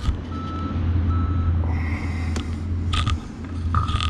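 Backup alarm beeping in a steady series of short tones, which stop about a second and a half in, over a low steady engine rumble. A few sharp metallic clicks come in the second half.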